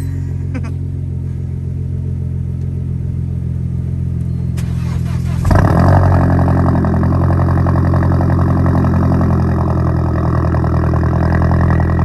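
An Audi 2.7-litre twin-turbo V6 with a 2.5-inch straight-pipe exhaust idling steadily. About five and a half seconds in, a second Audi's 1.8-litre turbo four with a 3-inch straight-pipe exhaust cold-starts and idles louder over it.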